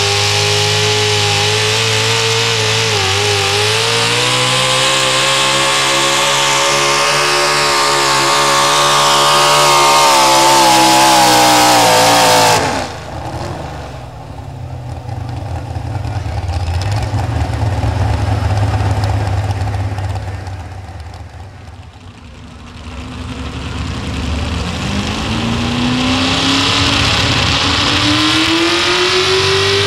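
Pro stock four-wheel-drive pulling truck engine at full throttle, its pitch climbing steadily as the truck drags the sled, until the sound cuts off sharply about halfway through. Lower, rougher engine noise follows, and near the end another pulling truck's engine revs up, rising in pitch.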